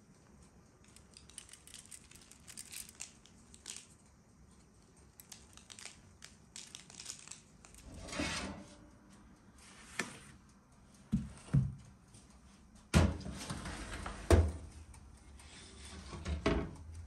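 Faint brushing and rustling as buns are glazed and sprinkled with sesame seeds, then a series of knocks and clatters from the metal baking tray and the countertop electric oven, the loudest a pair of sharp knocks about three-quarters of the way through.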